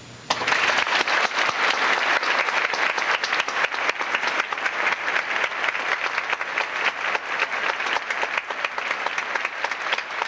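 Audience applauding, breaking out suddenly about a third of a second in and carrying on as steady, dense clapping.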